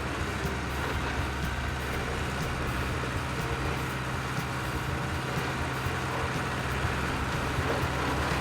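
A large vehicle's engine running steadily with a low, even hum.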